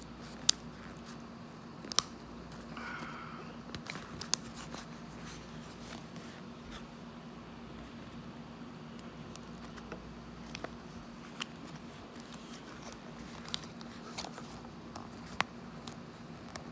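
Fingers pressing a replacement leather ear cushion onto a Bose QuietComfort 35 earcup: rubbing and scraping on the pad and plastic rim, with a handful of sharp plastic clicks as the cushion's ring is worked under the earcup's clips. A faint steady hum sits underneath.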